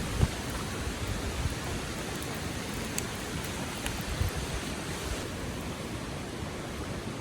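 Steady rushing of a river flowing over stones, with a few faint clicks and low buffets of wind on the microphone.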